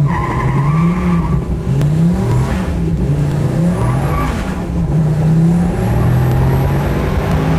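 Supercar engine under hard acceleration, its pitch climbing and dropping back again and again, about once a second or so.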